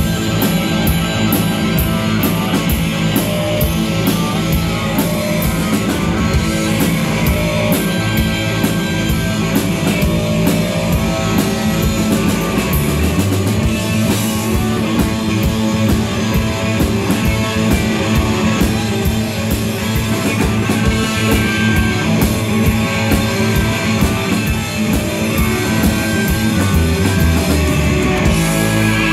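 Live blues-rock band playing loud: electric bass, a drum kit with steady cymbal strikes, and a harmonica cupped against a microphone.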